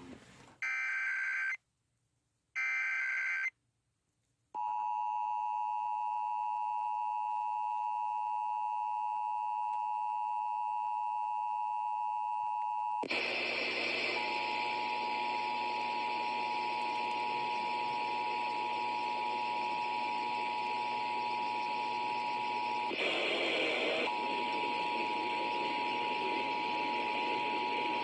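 Emergency Alert System test tones over a broadcast: the last two of the three SAME header data bursts, each a buzzing screech about a second long, then, after a second of silence, the steady two-tone attention signal (853 and 960 Hz sounded together). About halfway through a steady hiss comes in under the tones, and the tones drop out for about a second near the end.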